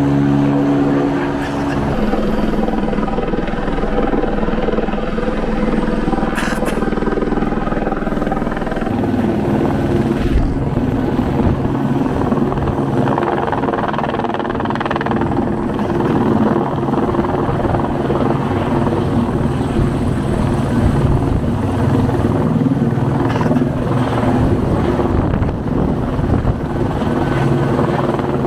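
Helicopter hovering overhead, its rotor and turbine running steadily while it carries a slung bridge section on a long line.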